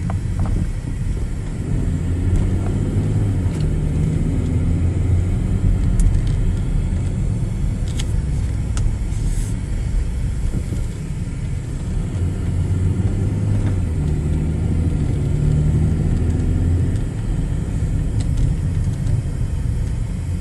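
Car engine and road noise heard from inside the cabin while driving slowly: a steady low rumble that swells a little a few times.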